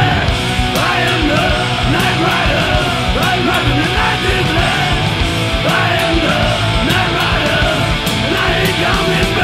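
Heavy metal / punk rock band playing at full tilt: distorted electric guitars, bass and drums, with rapid cymbal strikes and bending pitched lines riding on top.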